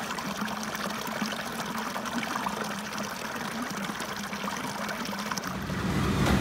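A small stream of water trickling and splashing over rocks. About five and a half seconds in, a low rumble fades in over it and grows louder.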